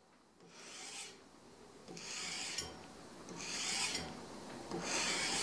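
Sandpaper wrapped on a hand block rubbed along a forged steel knife blade, four rasping strokes about a second and a half apart: hand-sanding the blade to remove scratches.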